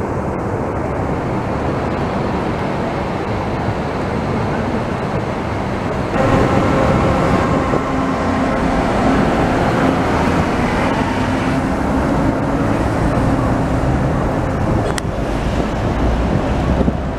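Steady city traffic noise from the street below. About six seconds in it gets louder and a steady hum rises over it as a monorail train passes close by on the elevated guideway.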